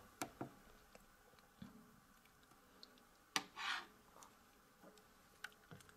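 A few faint, scattered clicks of keys being pressed on a handheld spectrum analyser's keypad, with a short soft rustle about three and a half seconds in.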